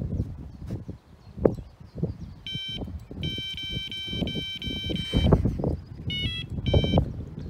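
Electronic carp bite alarm beeping: a short beep about two and a half seconds in, a run of rapid beeps lasting about two seconds, then two more short beeps near the end. Under it are irregular low knocks and rumbling from handling, with a sharp knock about one and a half seconds in.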